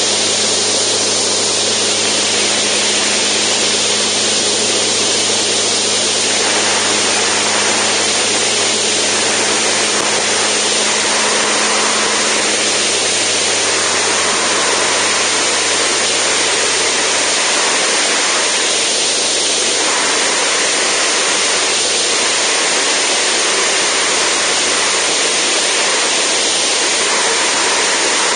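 Steady rushing wind noise on an outside-mounted camera of a Zenith STOL CH750 in flight, with the engine's low drone underneath, which fades out about halfway through.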